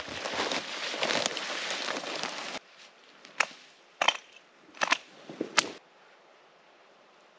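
Spruce pole with its branches still on, dragged through dry brush: a continuous rustling, crackling scrape that stops suddenly. Then four sharp woody cracks, a little under a second apart, as the pole is worked on the ground.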